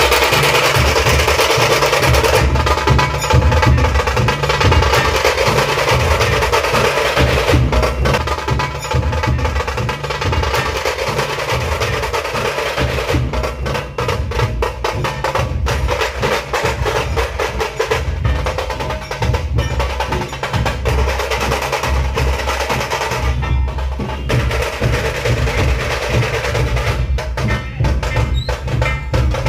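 A dhol-tasha troupe drumming in a loud, continuous rhythm. Many large barrel dhol drums are beaten with stick and hand, under the rapid, sharp strokes of tasha drums played with thin sticks.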